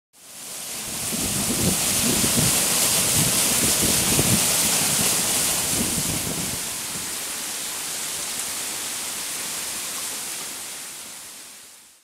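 Large mountain waterfall: water pouring onto rocks as a steady hiss, with a low rumble through the first half. It fades in at the start and fades out near the end.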